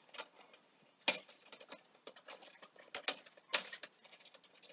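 Scattered clicks and light taps from handling the fluorescent fixture's metal and plastic parts, with two sharper knocks, one about a second in and one past the middle.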